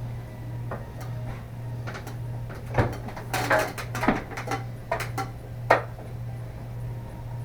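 A run of light knocks and clinks of hard objects being handled, starting about three seconds in and stopping near six seconds, the sharpest near the start and the end of the run. Underneath is a steady low hum.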